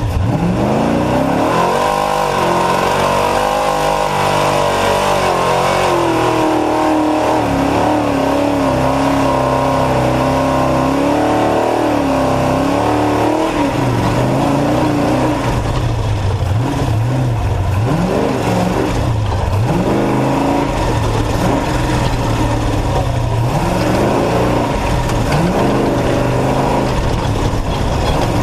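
Off-road race truck engine running hard. Its revs climb in the first second and hold high and fairly steady for about twelve seconds, then rise and fall again and again.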